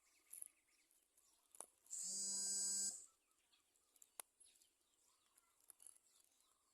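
A steady buzz lasting just under a second, starting about two seconds in, with faint small clicks around it.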